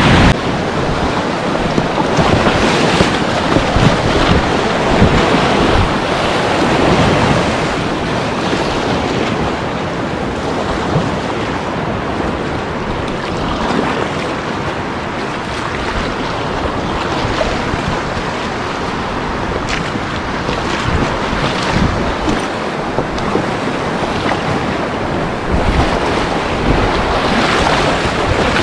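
Rushing whitewater of river rapids, a loud steady wash of water, with wind buffeting the microphone.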